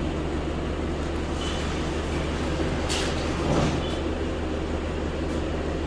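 Isuzu Elf crane truck's engine running steadily, with a click about three seconds in and a brief louder clunk just after.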